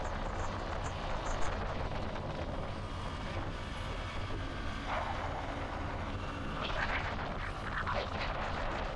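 Steady rumble of a moving motorcycle, engine drone mixed with wind on the microphone, with a few brief higher-pitched sounds about five to eight seconds in.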